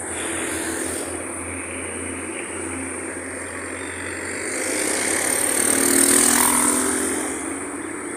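Road traffic beside a highway: steady traffic noise, with a vehicle engine passing close that swells to its loudest about six seconds in and then fades. A steady high-pitched hiss runs underneath.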